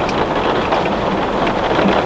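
Heavy rain falling on glass: a steady, dense hiss with scattered taps of single drops.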